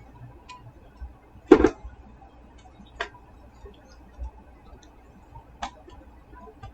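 A few sharp clicks and taps from handling a phone and USB Type-C charging cables on a desk. The loudest is a double click about a second and a half in, with single clicks around three seconds and near the end.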